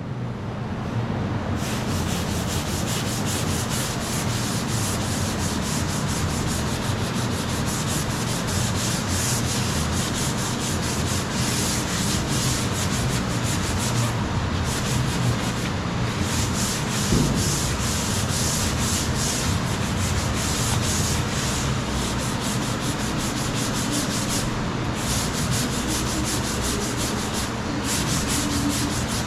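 Steady sanding of Bondo body filler on a car's quarter panel, a continuous scraping rasp with a few brief pauses.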